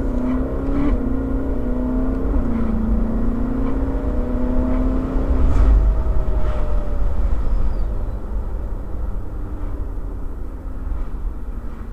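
Ferrari California's V8 engine under acceleration, heard from the open cabin over wind rush: the engine note climbs, steps down twice in the first few seconds, rises again, then fades about halfway through. The wind and road noise peak around the middle and carry on steadily afterwards.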